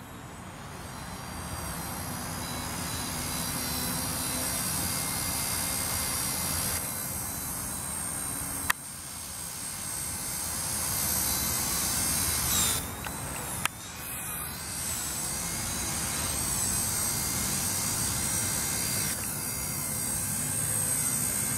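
E-flite mCP X micro RC helicopter's small electric motors and rotor whining, the high-pitched whine rising and falling with the throttle, over rough wind noise on the microphone. Two sharp clicks stand out, about nine and fourteen seconds in.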